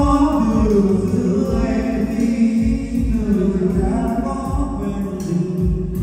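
Male voices singing a Vietnamese karaoke song into microphones over a backing track, played loud through a home karaoke system of G6000 speakers and a T9 subwoofer in a tiled room.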